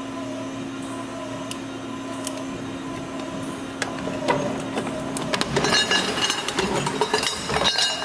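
Compressor-cutting machine (O-Jung CW 809A+) running with a steady hum as a sealed refrigerator compressor shell spins between its rollers and is cut around its circumference, with a few sharp ticks. From about five and a half seconds a loud burst of metallic clattering and rattling follows as the cut goes through and the top of the shell comes loose.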